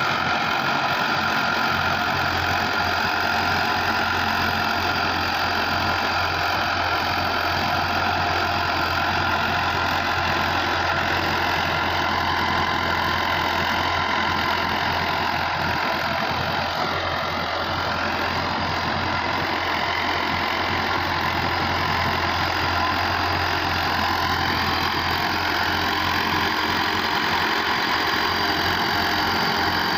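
Mahindra Arjun 555 DI tractor's four-cylinder diesel engine running steadily under load while driving a rotavator through the soil. Its pitch sags briefly a little past halfway and recovers.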